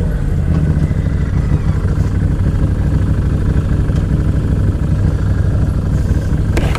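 Side-by-side UTV engine running steadily at a low drone as the machine moves along a rough trail, with a brief click near the end.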